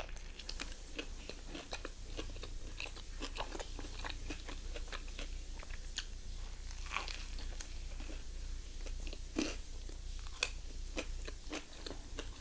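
Close-up crunching and chewing of crispy fried chicken: Dave's Hot Chicken, bitten and chewed in many short, irregular crunches.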